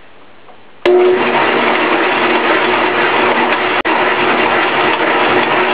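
Homemade belt-driven clay mixer-muller switched on about a second in: its 1.5-horsepower electric motor, belts and impeller start at once and run steadily with a hum, churning a batch of sand, bentonite clay and water into greensand.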